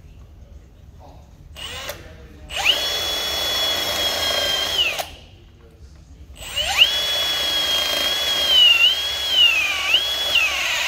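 Cordless drill with a boring bit cutting into the lead connector bars of an industrial forklift battery. A short burst is followed by two longer runs of the drill's high whine. During the second run the pitch sags several times as the bit loads up in the lead.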